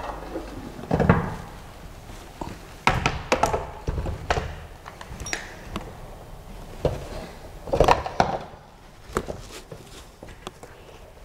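Knocks and clunks of a 3D printer's black metal gantry frame being lifted, set onto its base and handled, with a few louder knocks among scattered clicks.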